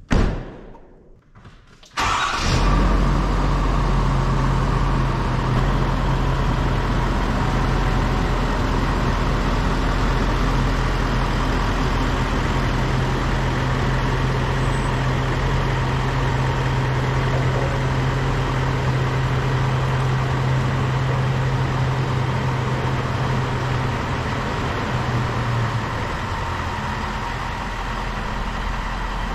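A single thump, then the Ford F450's 6.7-litre Power Stroke V8 turbodiesel starts about two seconds in and runs at a steady idle. The sound eases a little near the end as the truck backs away.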